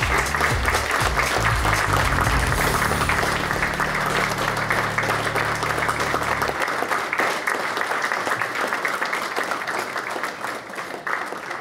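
Audience applauding, with low background music notes under it that stop about two-thirds of the way through; the applause fades slightly near the end.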